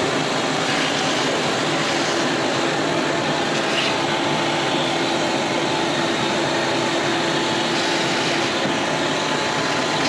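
Shop vac running steadily, its hose sucking built-up dust out of the inside of a gas furnace cabinet.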